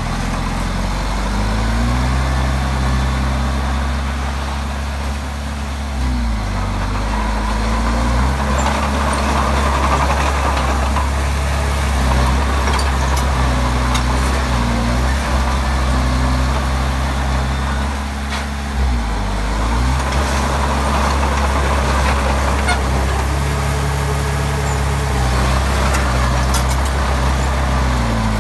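Komatsu D20P bulldozer's diesel engine running under working load. The revs sag and climb back several times, most clearly about six seconds in and again about eighteen seconds in.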